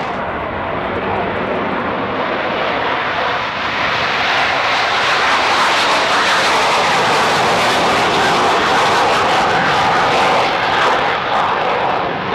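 Loud, steady jet noise from the twin J79 turbojets of an F-4F Phantom II taking off and climbing away in afterburner.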